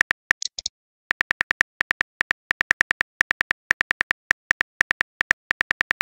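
Simulated phone-keyboard key clicks, rapid typing at about five clicks a second. About half a second in there is a brief high-pitched sound, then a short gap before the typing resumes.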